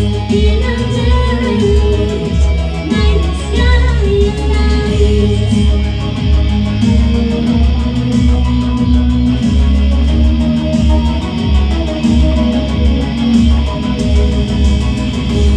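Industrial/darksynth band playing a song live: electric guitar over synthesizer and a steady beat, with a woman singing mainly in the first few seconds.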